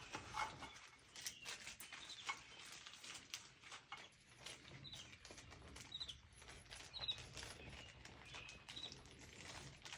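Faint scattered clicks and light taps of small metal screws and tools being handled, with short high chirps that recur every second or two.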